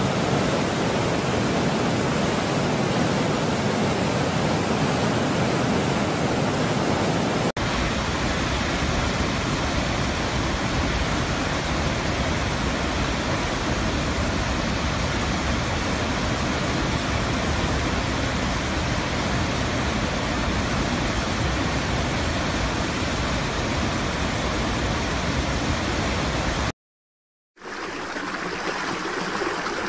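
Steady rushing water of a waterfall. It changes abruptly about seven and a half seconds in, as if to another recording, cuts out completely for about a second near the end, then returns as a lighter, quieter stream.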